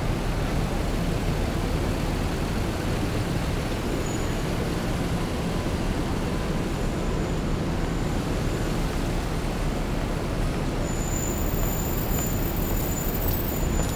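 Steady city street traffic noise with a low engine rumble. A faint high whistle comes in about eleven seconds in.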